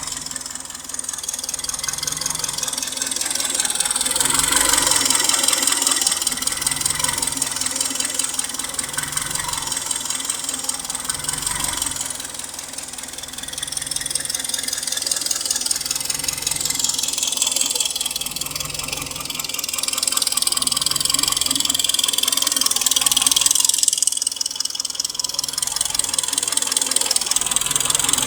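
Hyundai/Kia G4KD 2.0-litre inline-four petrol engine idling fully warm with a fast, continuous knocking tick, the knock it develops when hot. The overall sound swells and eases every several seconds as the idle speed wanders.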